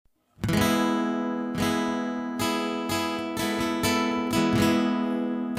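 Acoustic guitar strumming chords, the intro of a background song, starting about half a second in.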